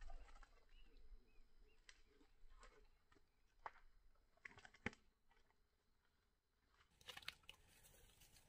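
Faint, scattered rustles and crackles of dry twigs and leaves being disturbed, with a few sharp ticks and a denser patch of rustling near the end.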